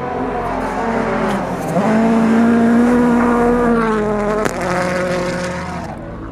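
Rally car engine under hard throttle as the car comes up and passes close by. Its note dips and jumps back up in a gear change a little under two seconds in, holds high at its loudest, then falls away after it passes, with a few sharp cracks.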